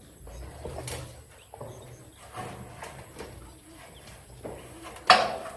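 Irregular knocks and clatter, a few scattered hits, with one loud sharp impact about five seconds in.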